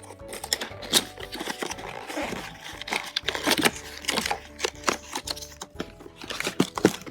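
Packaging being handled and opened, with repeated sharp clicks and crinkling rustles, over background music with sustained notes.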